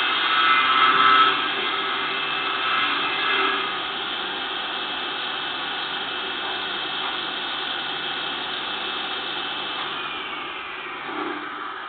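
Homemade table saw's motor running steadily, louder for about the first second. Near the end a falling whine comes in as it eases off.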